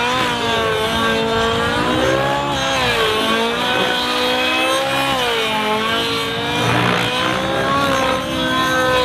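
SAB Goblin 700 nitro RC helicopter's engine and rotor running hard through aerobatic manoeuvres, its pitch rising and falling in repeated swells as the power is pushed.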